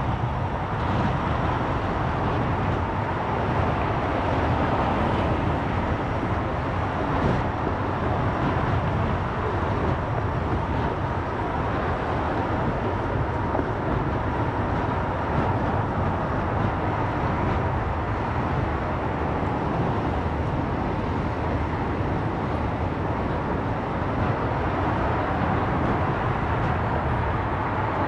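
Steady road and engine noise of a car driving in city traffic, with a faint steady hum.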